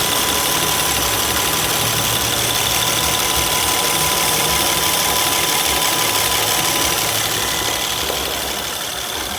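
2008 Honda Accord V6 engine idling with the freshly recharged A/C running, its compressor cycling. A faint steady whine sits over the engine noise and fades about seven seconds in, and the overall sound drops a little near the end.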